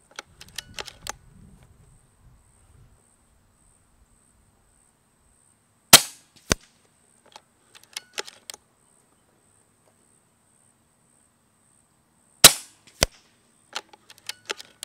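Air Arms Galahad HR .22 regulated PCP air rifle firing two shots about six seconds apart, each a sharp crack followed about half a second later by a second, fainter sharp click. Softer clicks come between the shots.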